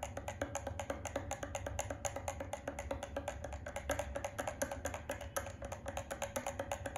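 Metal spoon stirring a whey protein shake in a drinking glass, clinking rapidly against the glass, several strikes a second, over a ringing tone.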